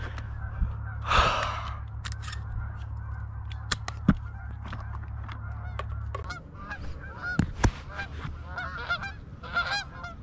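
Canada geese honking: sharp single honks at first, then many overlapping honks from a flock overhead, busier from about six seconds in. A low steady hum underneath stops about six seconds in.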